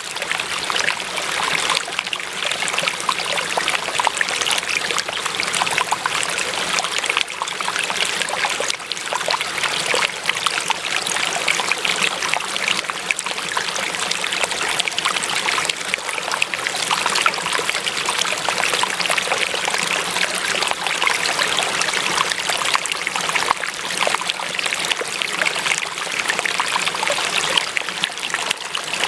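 A small stream of water running and trickling steadily, a dense, even babble with fine splashing texture.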